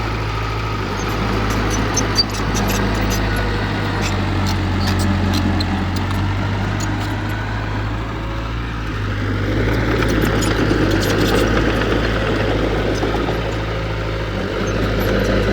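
Heavy diesel engine of earthmoving equipment running steadily, its sound swelling louder about ten seconds in.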